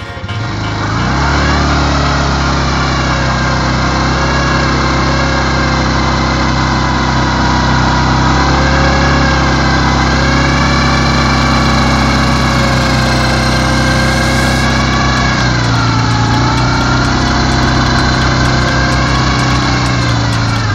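Dinli 700 ATV engine revved up about a second in and held at high, slightly wavering revs as the quad sits bogged in deep mud. The revs drop briefly about three-quarters of the way through, then climb again.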